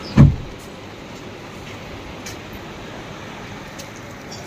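A single heavy, dull thump just after the start, then a steady low rumble and hiss of background noise.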